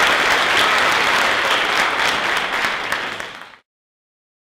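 Audience applauding, thinning out and cut off abruptly about three and a half seconds in.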